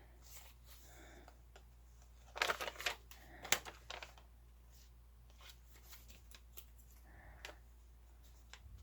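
Paper and journal pieces being handled: light rustling and scattered small clicks, with a short louder burst of rustling about two and a half seconds in and a sharp click about a second later.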